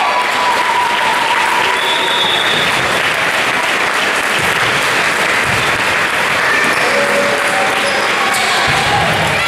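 Gymnasium volleyball crowd clapping steadily, with scattered shouts and a couple of dull thumps in the second half.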